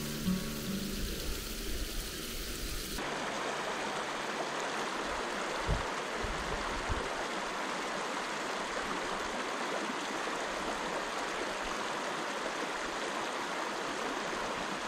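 Clear-flowing river water rushing steadily, coming in suddenly about three seconds in as background music cuts off.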